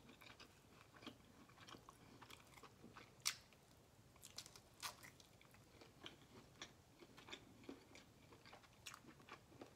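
Faint close-miked chewing and biting of chicken sausage: scattered wet mouth clicks and smacks, the sharpest about three seconds and five seconds in.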